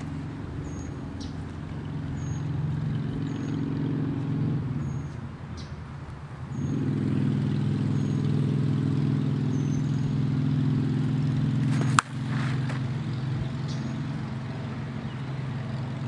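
A Dudley Lightning end-loaded softball bat hits a pitched slowpitch softball once with a single sharp crack, about twelve seconds in. Under it runs a steady low motor hum that dips for a couple of seconds near the middle.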